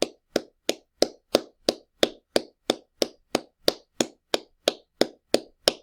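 Hands clapping loudly in a steady, even rhythm of about three sharp claps a second.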